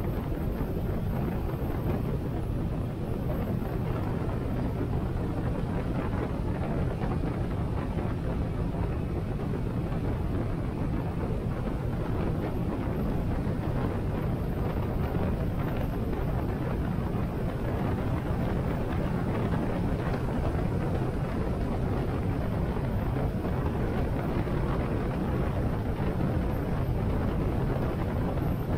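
Harley-Davidson Sportster 883's air-cooled V-twin engine running at a steady cruising speed, heard from a helmet-mounted camera over wind and road noise.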